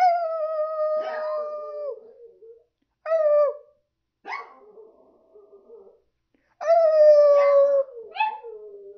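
Dog howling in drawn-out, slightly falling calls, with shorter yelping calls between them. There is a long howl at the start, short calls about three and four seconds in, another long howl about seven seconds in, and a few quick calls after it.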